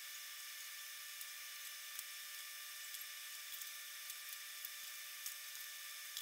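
A steady faint high hiss with a thin whine, broken by a handful of faint light ticks and clicks as the thin aluminium skin sheet is handled.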